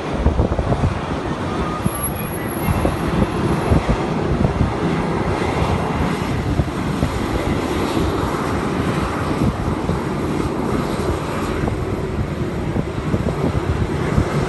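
Jet engines of a Boeing 737 airliner taxiing past at low thrust: a steady rumble.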